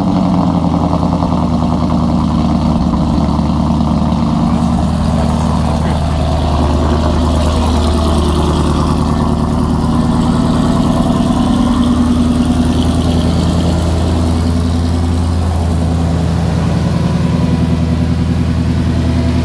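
Supercharged 5.0 V8 of a Shelby Terlingua Mustang idling steadily on a cold start.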